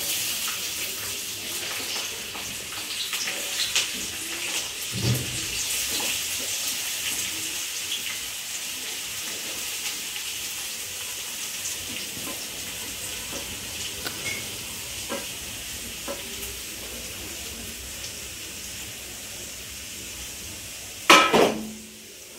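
Hot oil sizzling in a steel kadhai on a gas stove. It starts suddenly, slowly dies down, and has a few light clinks through it. About twenty-one seconds in there is a short loud metallic clatter.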